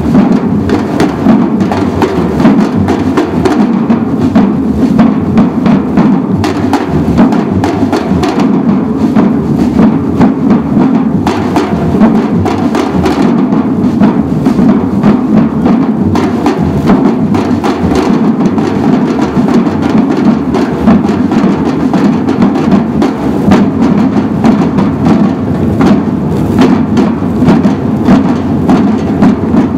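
Samba drum group playing large stick-struck drums together in a continuous loud rhythm.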